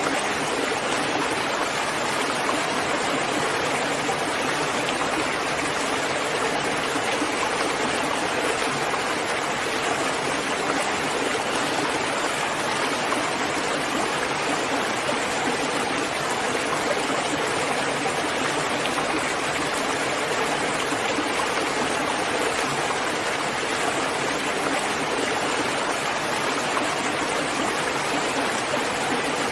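Steady rain falling, an even wash of sound with no single drops, gusts or thunder standing out.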